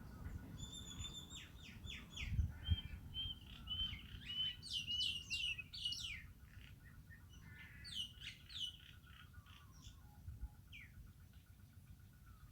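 Birds chirping and singing: a run of quick downward-sliding chirps, busiest in the first half and thinning out toward the end. A couple of low thumps come about two and a half seconds in.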